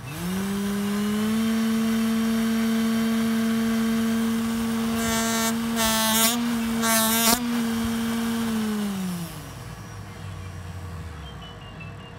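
Small brushed DC can motor, run from a transistor-and-MOSFET speed controller, spins up quickly to a steady whine. A few brief harsher buzzes come about five to seven seconds in. It then winds down and stops about nine seconds in.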